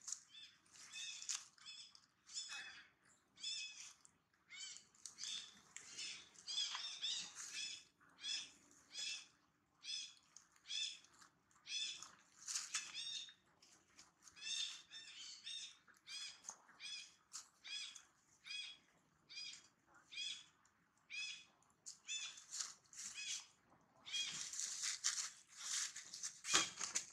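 Long-tailed macaque squealing over and over, a train of shrill, high-pitched cries about one or two a second, while it is pinned and bitten by another macaque; the cries crowd together and grow louder near the end.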